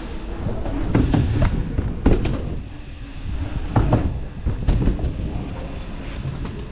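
Mountain bike being ridden fast over a bumpy track: tyres rumbling, with the bike rattling and a few sharp knocks over bumps.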